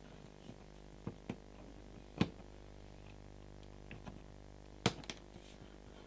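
A handful of sharp plastic clicks and knocks as a vacuum cleaner hose is handled and clipped into the cleaner's inlet. The loudest comes about two seconds in, and a quick pair comes near the end.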